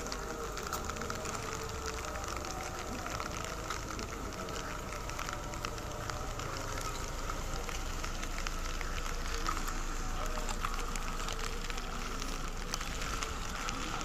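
Light rain pattering, a dense crackle of small drops, over a faint steady hum.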